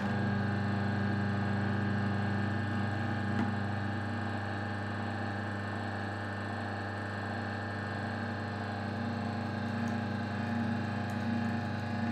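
Electric horizontal auger juicer running steadily with a low, even motor hum as its auger presses cooked rice through a nozzle into a tteokbokki rope.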